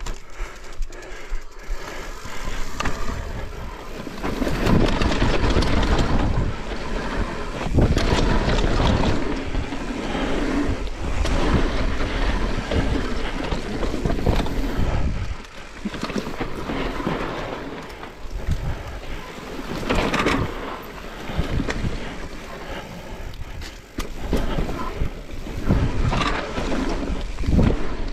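Mountain bike descending a dirt singletrack: knobby tyres rolling over dirt and forest litter, wind rushing on the camera microphone, and frequent sharp knocks and rattles as the bike takes bumps.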